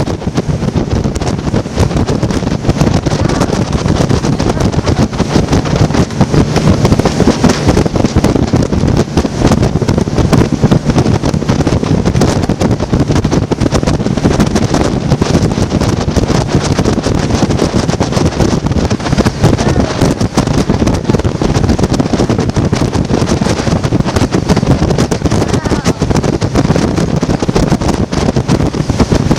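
Motorboat underway, with wind buffeting the microphone over the steady drone of the outboard and the hull on the water.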